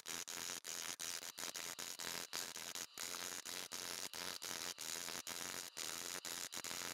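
Hammering of a thin fine-silver cup on a steel stake during raising, sped up so far that the blows run together into a dense, buzzing clatter, broken by brief gaps every fraction of a second.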